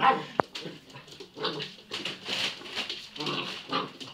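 Labrador puppy vocalizing in several short bursts, with a sharp knock about half a second in.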